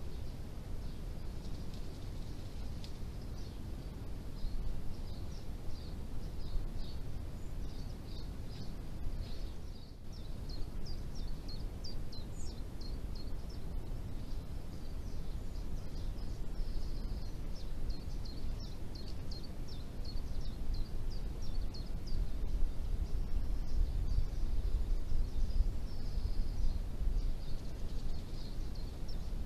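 Outdoor ambience: a steady low rumble of wind, with long runs of short high-pitched chirps, several a second, from small birds or insects in the hedge.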